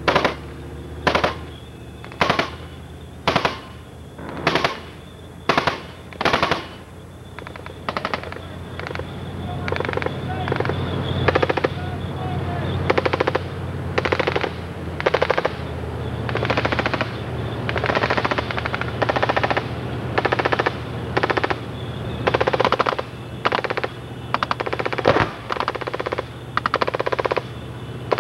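Machine gun firing in short bursts, about one a second, then in longer, closer-spaced bursts from about eight seconds in, over the steady low drone of a Leopard tank's engine.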